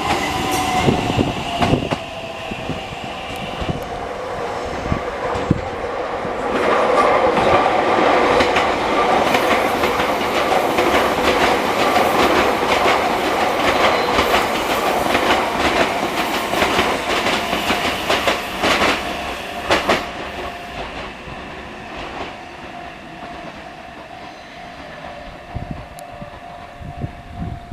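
A train passing at close range, its wheels clattering over the rail joints in a long run of clicks that builds to a peak, then fades as it moves away.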